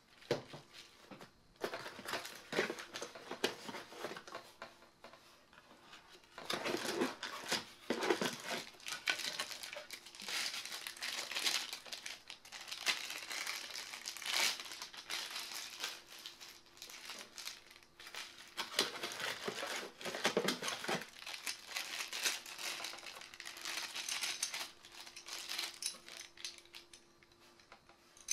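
Clear plastic packaging bag crinkling and rustling as it is handled, in uneven bursts with short pauses, along with the handling of cardboard box inserts.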